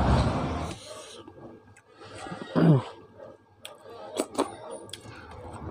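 Close-miked eating noises: chewing and wet mouth clicks as fingers bring food to the mouth. About two and a half seconds in there is a short, loud vocal sound falling in pitch.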